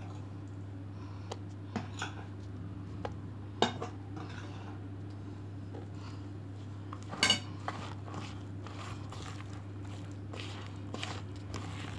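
A hand mixing flour into soft, sticky yeast dough in a bowl: soft squishing and rubbing with scattered knocks and clinks against the bowl, the two loudest about three and a half and seven seconds in. A steady low hum runs underneath.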